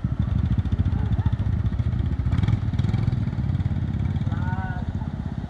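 Honda motorbike engine idling close by, a rapid even putter that eases off a little after about four seconds.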